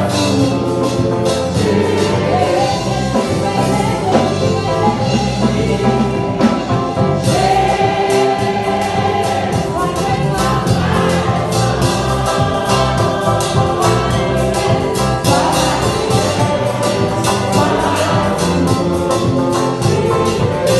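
Church congregation singing a lively gospel song together, clapping along to a steady beat.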